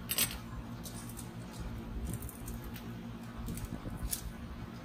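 Kapton tape being handled and pressed down by fingers around the edge of a resin printer's LCD screen: scattered soft crinkles and ticks, a sharper one just at the start, over a steady low hum.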